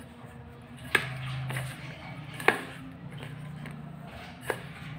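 Hand mixing roasted peanut powder and crushed jaggery in a stainless steel bowl, with three sharp knocks of the steel bowl spread through the few seconds.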